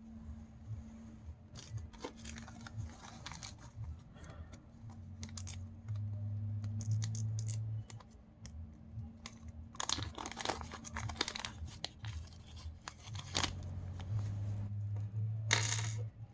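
Packaging being torn open and crinkled while small parts are handled, with scattered clicks and rustles. A low hum comes in twice, for about two seconds each time.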